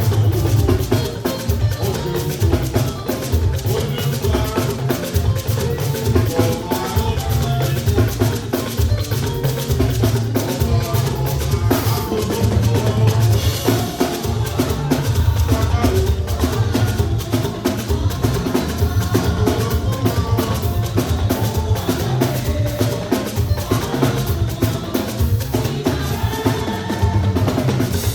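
Live band music driven by a drum kit, with a heavy bass and a steady beat.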